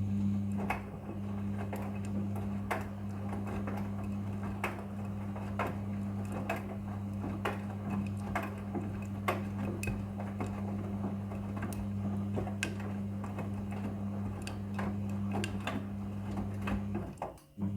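Front-loading washing machine tumbling a load: a steady motor hum under irregular clicks and knocks from the load turning in the drum.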